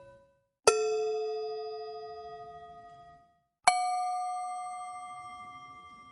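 Two "chiin" bell ding sound effects, each a single struck bell tone that rings out and fades away over about two and a half seconds. The second one comes about three seconds after the first and is higher in pitch. The last of an earlier ding dies away at the start.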